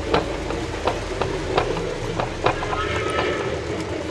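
Wooden toy train rolling along a wooden track, its wheels clicking over the track joints about two to three times a second over a low steady rumble.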